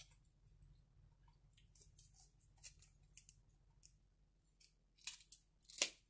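Shears snipping and cracking through snow crab leg shells: a scatter of small clicks and crunches, the loudest near the end.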